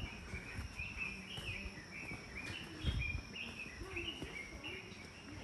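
Birds chirping: a continuous run of short chirps at varying pitch, several a second. Dull thumps at the start and about three seconds in.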